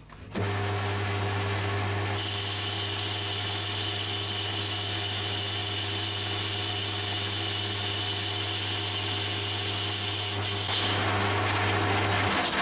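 Metal lathe starting up and running with a steady hum while the tool turns down the outside of a cast-iron piston blank. The cutting noise joins the motor about two seconds in, gets a little louder near the end, and then the lathe switches off.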